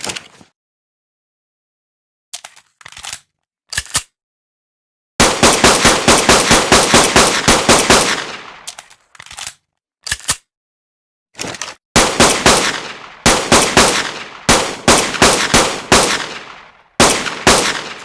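Made-up pistol gunshot sound effect: sharp shots, each with a short ringing tail. A few faint ones come first, then a rapid run of about four shots a second, then single shots and more rapid volleys, with dead silence between the groups.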